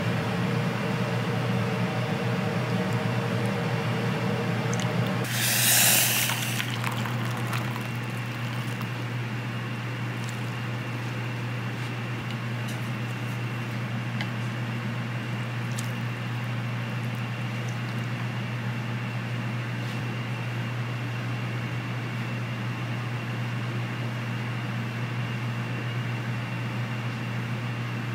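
Steady low machine hum, with a brief pour of liquid about six seconds in as broth goes into the bowl.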